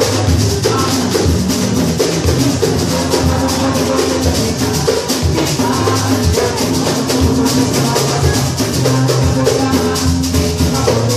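Brazilian batucada samba percussion ensemble playing live. Deep bass drums keep the beat under a dense, steady shaker and drum rhythm.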